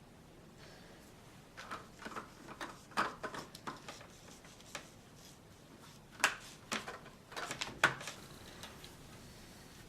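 Small plastic LEGO pieces clicking and knocking as they are handled and pressed together, in two bursts of irregular clicks.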